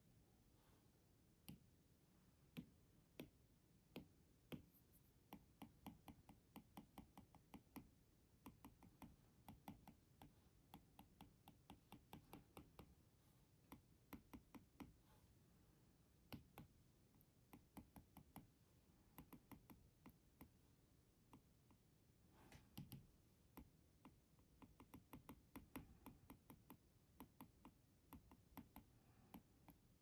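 Apple Pencil tip tapping on an iPad's glass screen during short shading strokes: faint, irregular clicks, bunched in quick runs of several a second.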